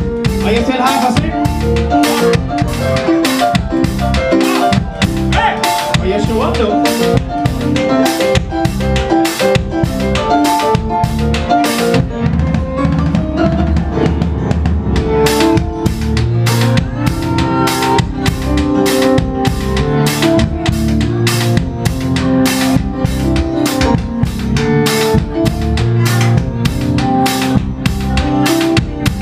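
Live band playing: a drum kit keeps a steady beat, loudest in the mix, over electric bass and keyboards. The cymbals drop out for a couple of seconds about twelve seconds in, then come back.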